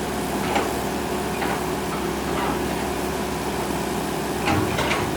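Excavator diesel engine running steadily, with a few short clanks or knocks over it.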